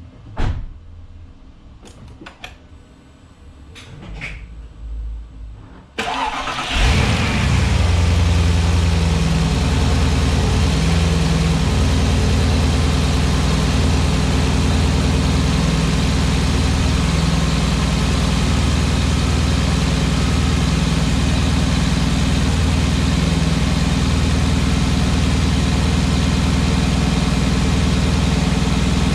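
Porsche Cayenne Turbo 957's twin-turbo V8 being started from cold. After a few short clicks, the starter engages about six seconds in, the engine catches with a brief loud flare, and it settles into a steady cold idle.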